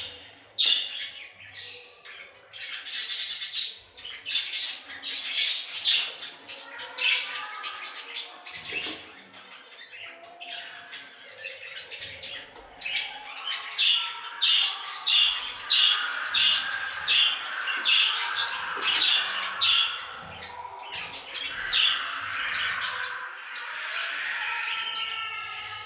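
Budgerigars chirping and squawking: many short sharp calls, with an even run of about two chirps a second in the middle and warbling chatter near the end.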